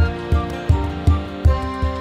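Instrumental cartoon music with a steady beat, close to three beats a second, under sustained chords.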